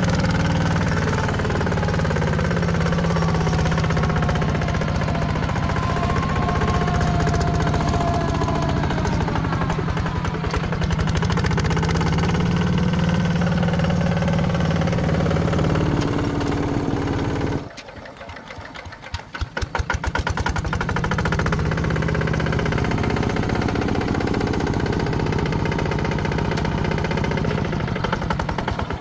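Heavy machine's diesel engine working hard with a steady, loud drone. About two-thirds of the way through it drops suddenly to a lower ticking run for a couple of seconds, then picks up again.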